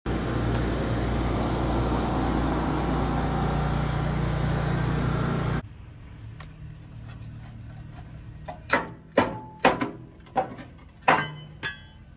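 A loud, steady noise with a low hum, which cuts off suddenly just under halfway through. Then a hammer strikes a steel propane tank bracket under a motorhome six times at uneven intervals, each blow ringing with a metallic clang, knocking the bracket loose to remove it.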